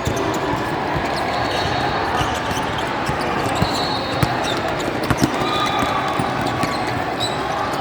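Basketball being dribbled on a gym court during a game, over a steady din of spectators in the hall, with short high squeaks now and then.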